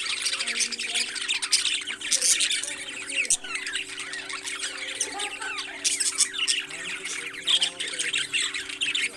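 Several parrots squawking and chirping in a rapid, overlapping chatter, over a steady low hum.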